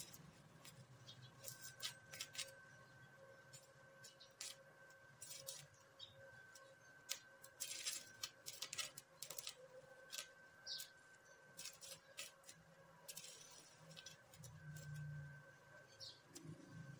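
Faint crackling and sputtering of a stick (welding-rod) arc welder joining steel pipe, in irregular bursts that stop and start as the arc is struck and broken.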